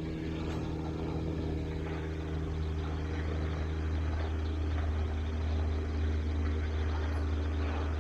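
Steady low drone of an engine or motor running, holding one pitch and swelling slightly about halfway through.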